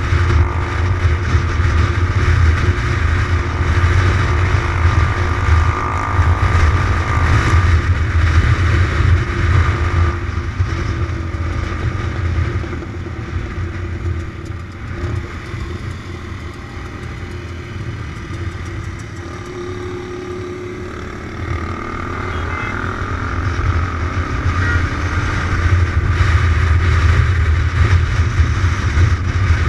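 Kawasaki motorcycle running at road speed, heard from on the bike: steady engine drone under heavy wind noise. It grows quieter about twelve seconds in and builds up again from about twenty-two seconds.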